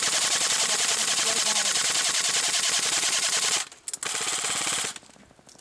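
Airsoft electric rifle firing full-auto: a long burst of about three and a half seconds, then a shorter burst of about a second.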